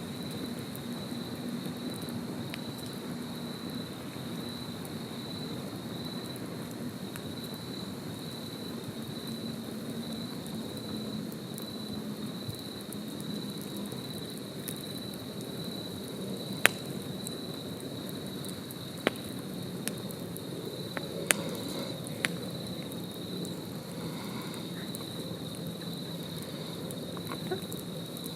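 Wood campfire crackling, with a few sharp pops a little past the middle; the loudest comes about 17 seconds in. A continuous high insect trill runs underneath.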